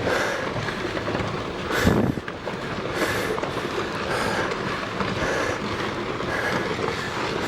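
Rockfall on a volcano slope: a continuous rumble and clatter of tumbling rocks, with one sharper, louder crack about two seconds in.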